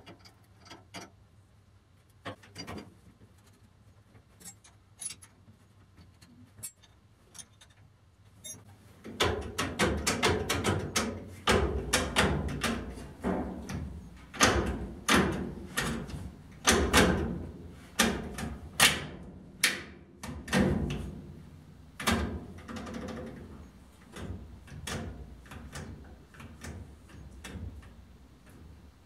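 Irregular knocks and clanks of hands-on metal workshop work. They are sparse and faint at first, then louder and closer together from about nine seconds in.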